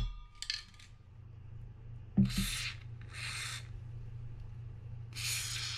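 Aerosol spray can with a straw nozzle hissing in four short bursts, each under a second, sprayed into the seized gear housing of a spinning reel to free its stuck parts.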